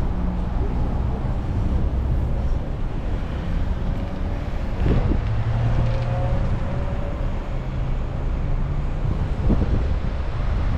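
Motor vehicle engines running in city street traffic: a steady low rumble with engine hum that shifts in pitch, and a couple of brief knocks, with some wind noise on the microphone.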